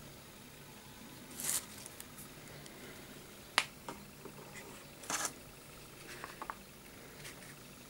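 A few sharp clicks and short rustling scrapes, with quiet stretches between them: a single sharp click in the middle, two brief rustles before and after it, and a few faint ticks near the end.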